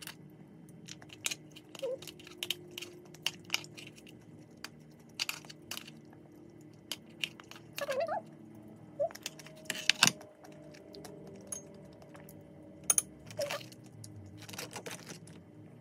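Scattered clicks and scrapes of a small fork picking meat out of a steamed Dungeness crab's shell, with sharper cracks of shell about ten and thirteen seconds in.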